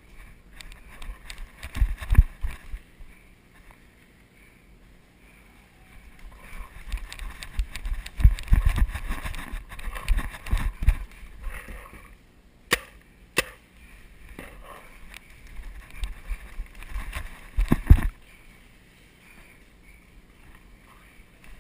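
Footsteps moving over dry leaf litter with the head-mounted action camera bumping and rubbing, in irregular bursts; two sharp cracks come about two thirds of a second apart near the middle, and a hard knock near the end as the camera meets a concrete bunker.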